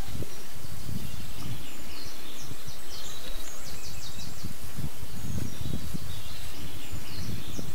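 Woodland ambience: birds singing short, high, repeated phrases over a steady outdoor hiss and low rumble.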